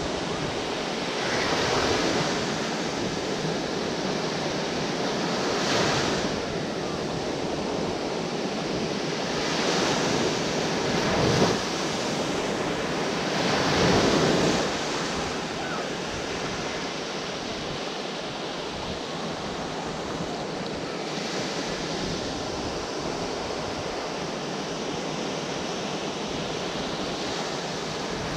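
Small waves breaking and washing up a sandy beach close by, the surf swelling every few seconds, loudest about halfway through. One brief sharp thump sounds about a third of the way in.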